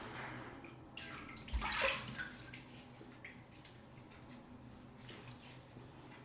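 Water splashed onto a face by hand to wet the whiskers before shaving, with the loudest splash about a second and a half in, then softer splashing.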